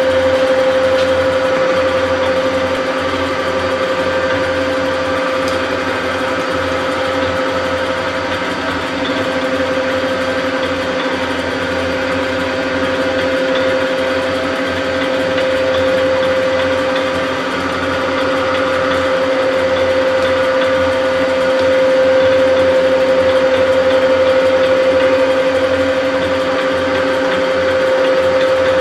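Bridgeport milling machine running, its spindle motor and belt head giving a steady whine with a low hum beneath.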